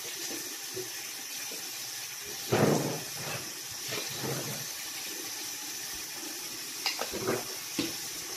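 Bathroom tap running steadily into a sink while water is splashed onto a face with cupped hands to rinse off face wash. There are a few louder splashes, about two and a half seconds in and again near the end.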